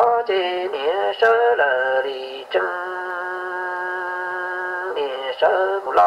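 Solo singing in short gliding phrases, with one long steady held note starting about two and a half seconds in and lasting over two seconds.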